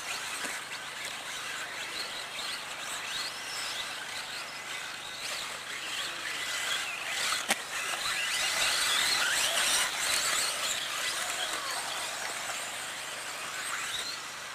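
Several 1:10 four-wheel-drive electric RC buggies with brushless motors whining as they race, each pitch rising and falling with the throttle. A single sharp knock comes about halfway through.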